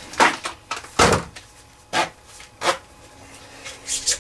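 Handling noises from unpacking lathe accessories: about five short knocks and clatters, the loudest about a second in.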